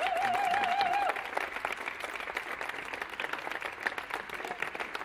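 Audience applauding, with dense, irregular hand claps throughout. In the first second a wavering held note sounds over the clapping and then stops.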